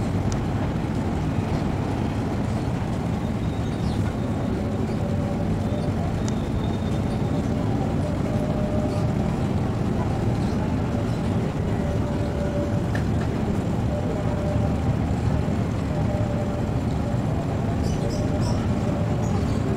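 Electric commuter train approaching slowly, a steady low rumble of its running gear and motors, with faint voices of people by the tracks.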